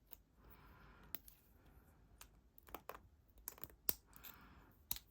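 Scattered light metallic clicks and soft scraping from a cheap 50 mm laminated padlock being worked with a shim at the shackle.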